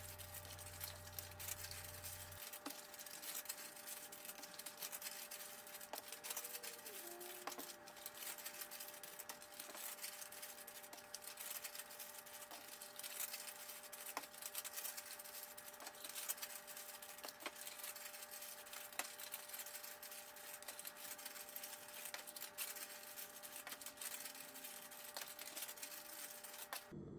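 Faint, rapid ticking and rustling of glassine paper bags being folded and closed with round paper stickers, over a steady low hum.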